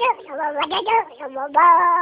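A talkative domestic cat meowing back in a run of varied, chattering meows, ending in one long drawn-out meow near the end.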